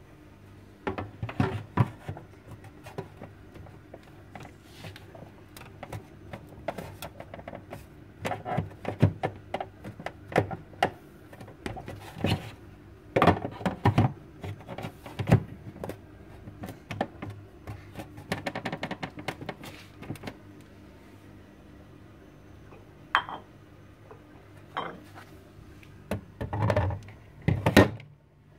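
Clear plastic fridge-door bottle tray being handled and pushed into its supports on the door: repeated plastic clicks, knocks and rattles, over a faint steady hum. Near the end a heavy weight plate is set into the tray with a louder knock and thud, loading it to test the repair.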